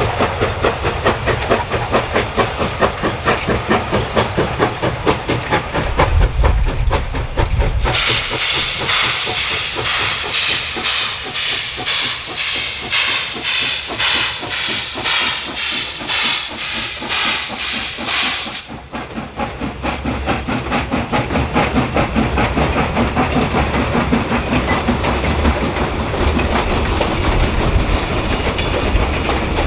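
Black River & Western No. 60 steam locomotive working, its exhaust beating in a rapid even rhythm. From about a third of the way in, a loud steam hiss rides over the beats for some ten seconds and then cuts off suddenly.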